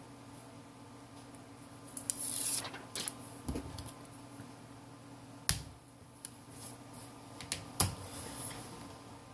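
Plastic opening pick scraping and clicking against the edge of a smartphone's glued-down screen as it is worked into the seam: a short scrape about two seconds in, then a few sharp clicks, over a faint steady hum.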